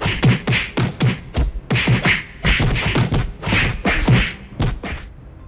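Fistfight blows: a rapid run of about twenty punch and kick impacts, several a second, with short swishes, stopping about five seconds in.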